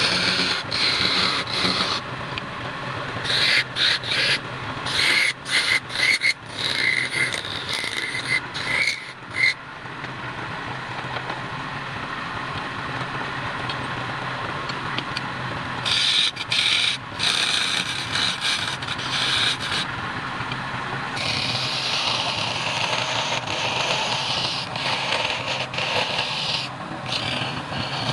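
Wood lathe running with a steady hum while a turning tool cuts into the spinning wood in scraping passes: short choppy cuts in the first third, a lull with only the motor, then longer continuous cuts in the second half.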